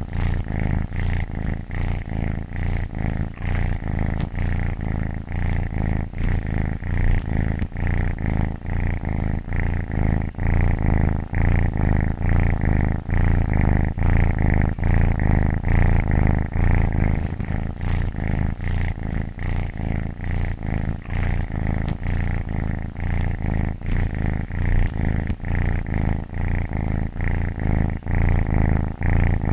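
Domestic cat purring continuously, a low rumble that swells and eases in a regular rhythm.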